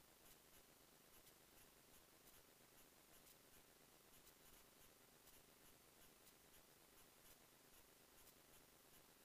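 Near silence: a faint steady hiss with faint ticks a few times a second.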